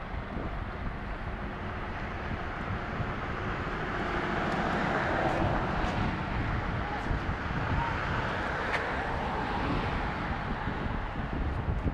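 Departing medevac helicopter, a Maryland State Police AW139: a steady rotor and turbine sound that grows louder about halfway through and then eases slightly as it climbs away, with wind buffeting the microphone.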